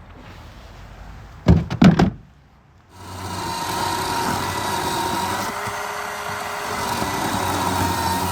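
A few heavy knocks, then about three seconds in a Bauer chainsaw with an Oregon chain starts running steadily at an even pitch, cutting wood.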